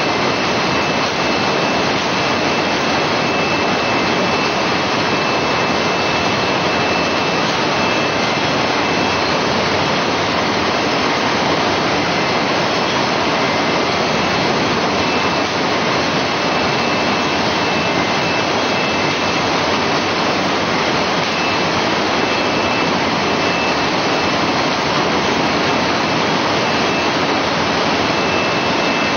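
Chicken-feet processing machinery running in a poultry processing plant: a steady, loud mechanical noise from the rotating drum and claw-peeling machines, with a faint steady high whine.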